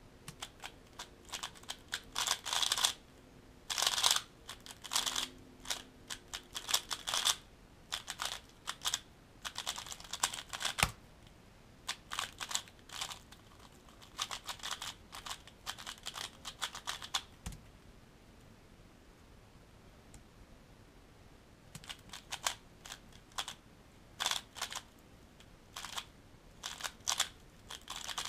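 Valk 3x3 speedcube being turned fast in a speedsolve: rapid bursts of plastic clicking and clacking as the layers snap round, broken by a quiet stretch of about four seconds past the middle.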